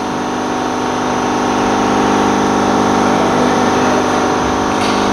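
Steady mechanical drone of running machinery, a constant hum made of many steady tones that holds at one even level.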